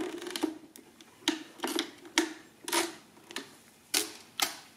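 Hamann Delta mechanical calculator being worked by hand at its carriage, giving about ten sharp metallic clacks roughly every half second, each with a brief ring.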